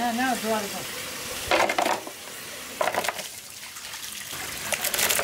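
Water running from a hose into a steel bowl of raw chicken wings, splashing as the wings are rinsed by hand, with a few louder splashes.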